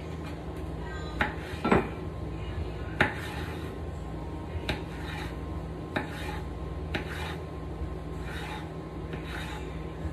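Kitchen knife slicing through zucchini and knocking on a bamboo cutting board: single knocks about once a second, unevenly spaced, over a steady low hum.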